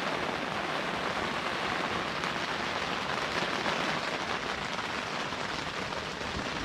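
Steady rain falling on a tent.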